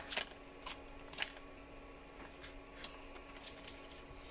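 Paper leaflet and cardboard packaging of a soft-pastel box being handled: a few short crisp rustles and taps, mostly in the first second and a half, with a faint steady hum underneath.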